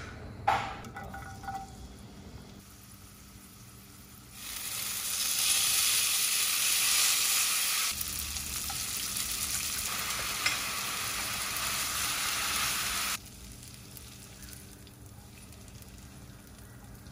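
Olive oil sizzling in a nonstick frying pan as spaghetti, garlic cloves and pollock roe fry in it. The sizzle starts about four seconds in and cuts off abruptly near the end, with a short clink just before.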